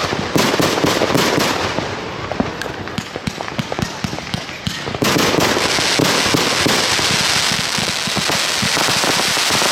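Consumer fireworks going off: a rapid run of sharp cracks and pops, then, about five seconds in, a sudden switch to a loud, steady, dense crackling hiss.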